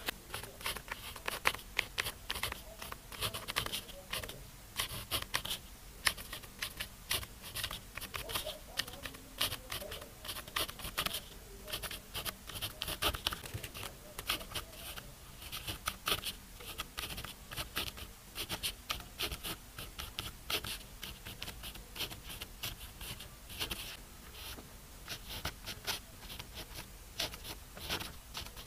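Pen scratching on paper while writing Chinese characters by hand: a continuous run of short, quick strokes and flicks on new paper that writes smoothly.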